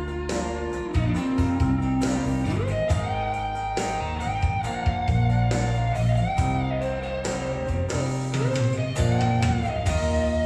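Instrumental passage of a Mandarin pop ballad: a lead guitar plays sustained notes with slow upward string bends over drums and bass, the music beginning to fade near the end.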